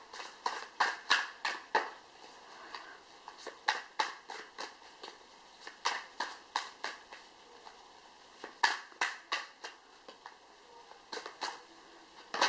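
A deck of tarot cards being shuffled by hand: quick runs of sharp card slaps and taps, several a second, with short pauses between runs.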